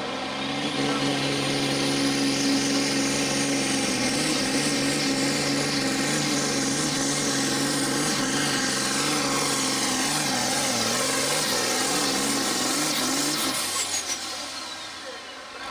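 John Deere 6030 pulling tractor's diesel engine running flat out under load as it drags the sled, its pitch wavering up and down in the second half. Near the end the engine drops off and a high whine falls away as the throttle closes at the end of the pull.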